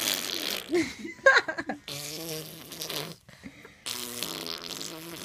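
Baby blowing raspberries: three long buzzing lip trills, with short high vocal squeaks between the first two.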